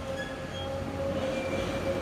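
Construction machinery working: a steady low rumble with a held mid tone, and short high metallic squeaks scattered through it.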